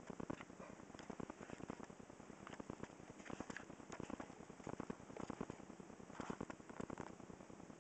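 Irregular crackling and clicking, several clicks a second, from a handheld digital camera being moved about: handling noise on the camera's microphone.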